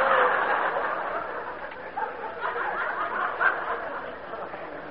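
A studio audience laughing. The laughter fades gradually, with a few scattered chuckles left near the end.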